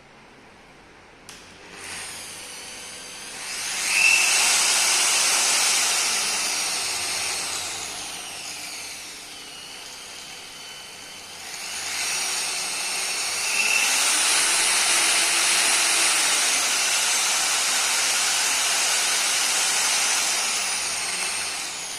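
Stanley SP 137 1300-watt variable-speed car polisher switched on and running, its motor whine climbing to high speed, dropping back, then climbing again and holding before easing off near the end. The motor runs fairly smoothly.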